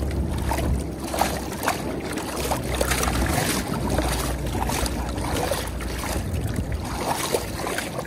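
River water sloshing and splashing in a plastic tote as trout thrash inside it and are let out into the river, with many small splashes over the steady rush of the current. A low rumble of wind on the microphone runs under it.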